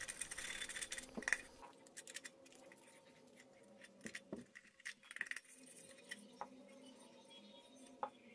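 Sandpaper rubbing on a painted metal tin, distressing the paint on its embossed rim. Faint scratching for the first second or two, then scattered light taps and clicks as the tin is handled, with a sharper tap near the end.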